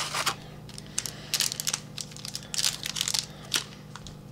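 Trading cards being handled and flipped through by hand: dry papery rustling and scraping in irregular bursts, over a faint steady low hum.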